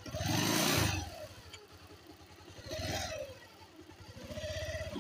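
Motorcycle engine revved three times, each time the pitch rising and falling back, with the engine running quieter in between.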